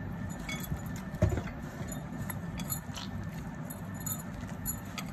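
Bangles jingling and clinking on the wrist in quick, irregular taps while a hand mixes and kneads flour and water into dough in a ceramic bowl, under the soft rustle of the dough being worked.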